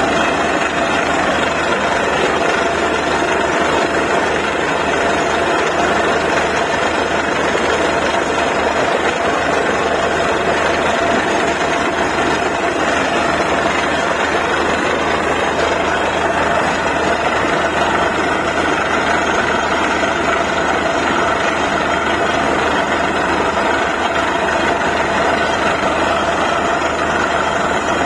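Borewell drilling rig's engine running steadily and loudly, with a constant whine over it.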